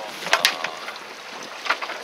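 Wind and sea noise on the open deck of a small fishing boat, with a few sharp clicks and knocks, two close together about a third of a second in and one more near the end.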